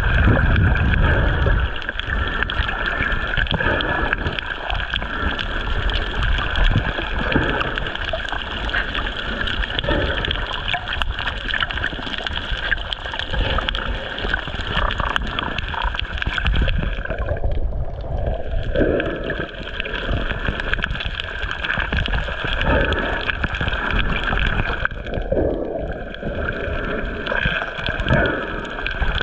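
Muffled rushing and gurgling of water picked up by a camera held underwater while snorkeling, a steady noise with slow swells in loudness.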